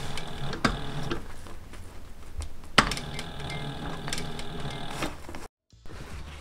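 Sailrite Deluxe Fabricator walking-foot sewing machine stitching slowly through heavy pack cloth, running steadily with a couple of sharp clicks, the loudest about three seconds in. The sound cuts off suddenly about a second before the end.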